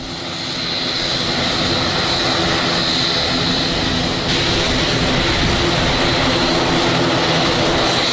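Turboprop engines of an ATR 72 running on the ground: a steady propeller drone with a high engine whine above it, fading in over the first second.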